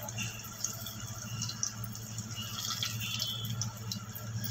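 Besan-battered potato fritters deep-frying in hot oil in an iron kadhai over a high flame: a steady sizzle with many small scattered crackles, over a steady low hum.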